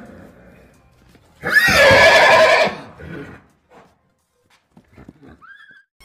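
A horse whinnying once, loud and quavering, about a second and a half in and lasting about a second, followed by a few much fainter sounds.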